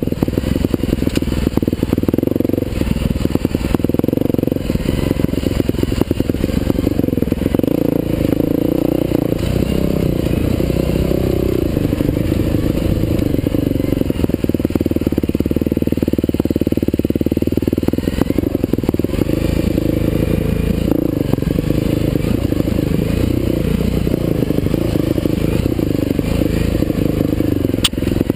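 Husqvarna TE511 single-cylinder four-stroke dirt bike engine being ridden on a rough trail, muffled, its revs rising and falling continually, with rattling and knocks from the bike over the uneven ground.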